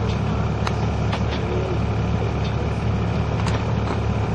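A heavy diesel engine idling steadily, a low even hum, with a few light clicks over it.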